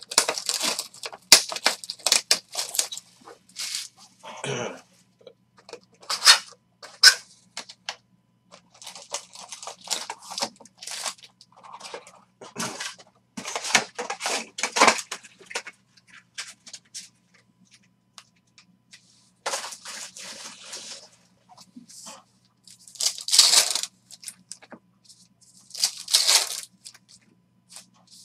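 A Panini Revolution basketball card box being opened and its foil packs handled and torn open: irregular crinkling, rustling and tearing of wrappers and cardboard, in short bursts with brief pauses.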